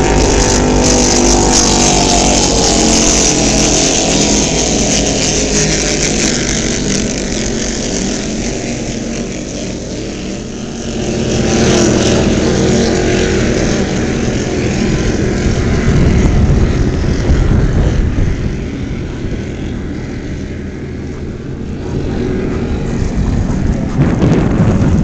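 Offshore racing powerboat engines running flat out as the boat passes, the engine drone strongest at first and fading over the first several seconds. A steady rush of wind and water noise continues throughout, swelling again midway.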